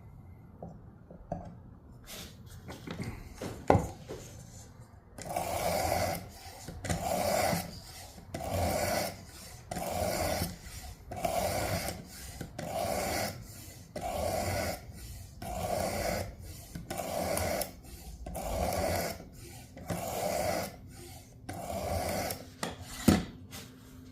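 Coarse 320-grit abrasive of a Work Sharp guided knife sharpener scraping along a clamped pocket-knife blade, in a steady run of back-and-forth strokes about one a second, reprofiling a really dull edge. A sharp knock comes shortly before the strokes begin and another near the end.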